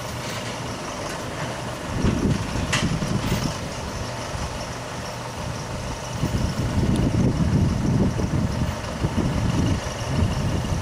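Backhoe loader's diesel engine running, getting louder about two seconds in and again from about six seconds on as the boom is worked. A sharp click near three seconds.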